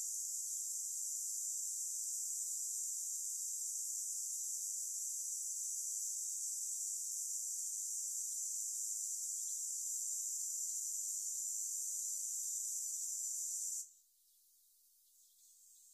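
Steady high-pitched insect chorus, an even drone with no low sound under it, that cuts off suddenly about 14 seconds in.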